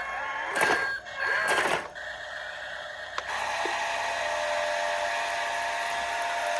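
RC excavator's electric motors and hydraulic pump whining. Short whirring bursts that rise and fall come with a few short high beeps in the first two seconds. From about three seconds in there is a steady whine.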